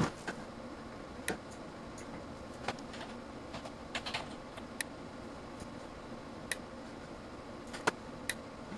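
A string of sharp, short clicks at irregular intervals from a homemade 2 kV surge generator firing repeated surges through a 14 ohm source into a multimeter under test.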